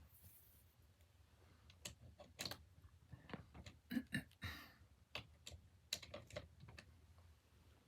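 Faint, irregular clicks and taps of small hard objects being handled, with a brief rustle about halfway through.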